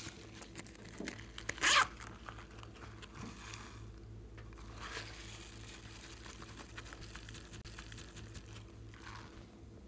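Zipper of a rubbery silicone cactus-shaped pouch being pulled open, one quick loud zip about a second and a half in. Softer scraping and rustling follow as the pouch is handled.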